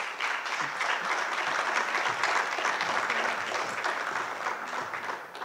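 Audience applauding, dense clapping that begins at once and dies away near the end.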